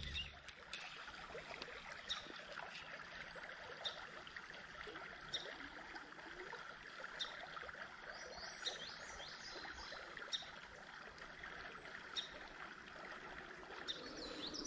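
Soft, steady rush of a shallow creek flowing over stones, with short high chirps every couple of seconds.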